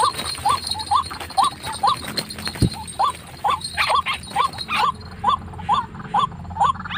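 White-breasted waterhen (ruak-ruak) calling: a steady series of short rising 'kwak' notes, about two a second. A thump comes about two and a half seconds in, and a patch of rustling and flapping a little later.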